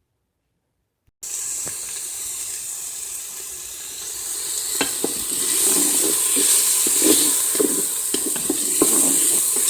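Chopped onions sizzling in hot oil in an electric pressure cooker's pot on the sauté setting, starting suddenly about a second in after silence. From about halfway through, a utensil stirs and scrapes them in the pot over the sizzle.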